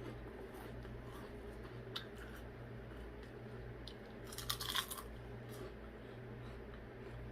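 Close-up eating sounds: a person chewing and biting into a turkey sandwich, with a short cluster of crisp, crackly clicks a little past the middle, the loudest moment. A steady low hum runs underneath.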